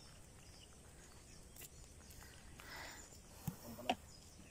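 Faint outdoor ambience with a soft rustle, then two small sharp clicks about three and a half seconds in.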